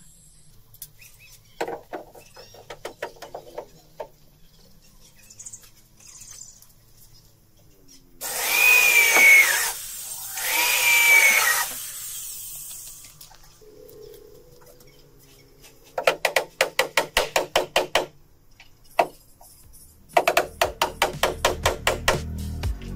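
Electric power tool working wood in two short runs of about a second and a half each, the motor's pitch falling as each run stops. Before and after, several runs of rapid ticking at about ten a second.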